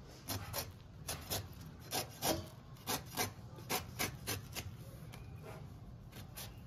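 Knife blade shaving the tough green rind off a young, unripe jackfruit, a quick series of short scraping rasps about two a second, fainter towards the end.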